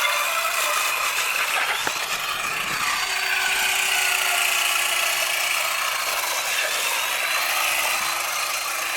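Electric RC car running: a steady rasping noise with a faint high whine over it.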